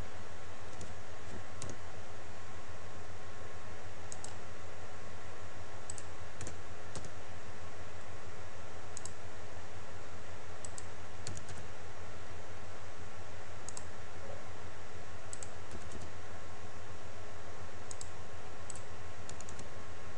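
Scattered clicks of a computer mouse and keyboard, some single and some in quick pairs, over a steady hum and hiss.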